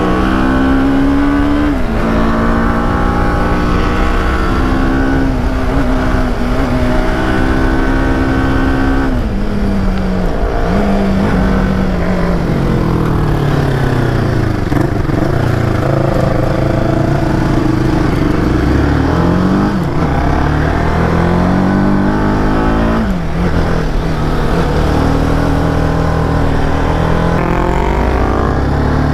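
Sport motorcycle engine heard on board while riding. Its pitch climbs under throttle and drops sharply at each gear change, about six times, and falls away slowly while easing off through a stretch in the middle.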